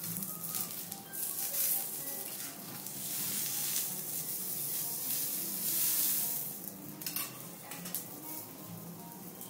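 Food sizzling on a hot teppanyaki steel griddle, the hiss swelling and fading, as vegetables are pushed across the plate with a knife and spatula; a sharp metal tick about seven seconds in. Soft background music underneath.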